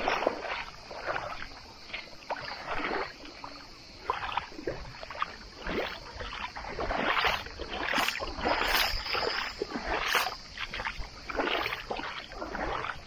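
Footsteps on wet gravel at the water's edge, crunching and splashing in irregular steps.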